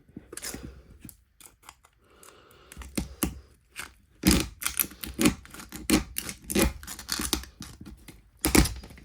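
An iPhone 4 being cut and broken apart with hand tools: an irregular run of sharp snips, cracks and crunches, sparse at first and coming thick and loud from about four seconds in.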